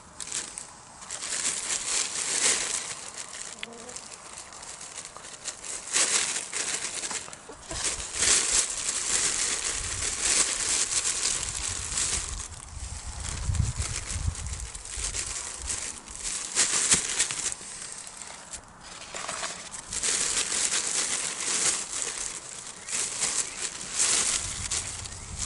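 Plastic bag rustling and crinkling in irregular bursts as fish are handled and coated in flour inside it, with a few dull knocks around the middle.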